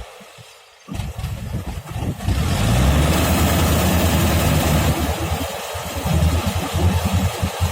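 Combine harvester's engine running. It comes back in about a second in after a brief quieter gap, rises in pitch as it revs up around two seconds in, then runs steadily with a throbbing low rumble.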